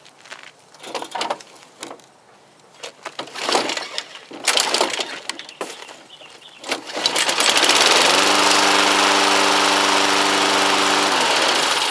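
A Craftsman push mower's 4-horsepower Tecumseh engine is pull-started: a couple of yanks on the recoil starter, then about seven seconds in it catches and runs steadily. There is no kickback on the pull, a sign that the flywheel key is good.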